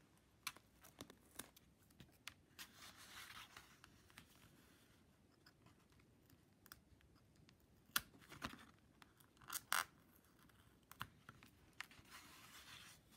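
Faint scratching and clicking of a hobby knife blade prying under vinyl mask circles on a canvas, with soft tearing as the vinyl peels away. A few sharper clicks come around the middle.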